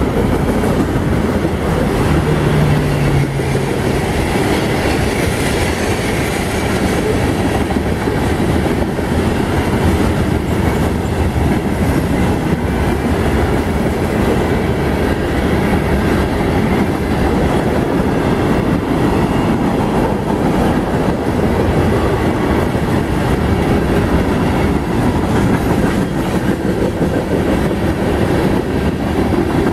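Freight cars of a mixed freight train rolling past close by: a steady rumble of steel wheels on the rails, with wheels clicking over the rail joints.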